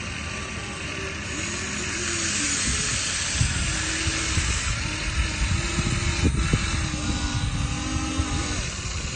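Small electric motors of an RC excavator whining over a steady hiss, their pitch stepping up and down as the machine works. From about three seconds in there are irregular low thumps.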